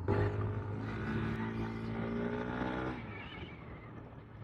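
Kymco KRV Roma GT scooter's 175cc single-cylinder engine pulling away under throttle, its pitch rising gently, then easing off about three seconds in as the throttle is closed.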